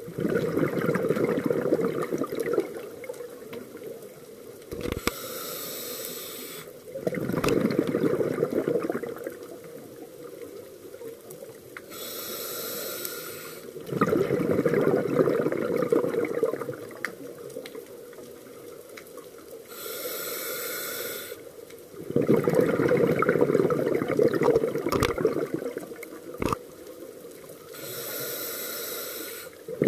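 Scuba diver breathing through a regulator underwater: a short hissing inhale, then a long rush of bubbling exhaust bubbles, the cycle repeating about every seven to eight seconds, four times.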